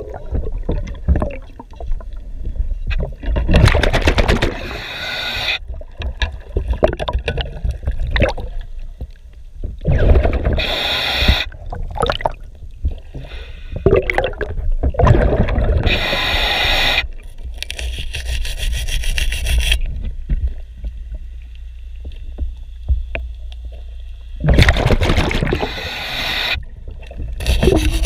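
Underwater sound of a diver scraping marine growth off a boat's propeller and running gear with a hand scraper, rough scratching and clicking. Every five or six seconds it is drowned out by a loud rush of the diver's scuba regulator breathing out bubbles.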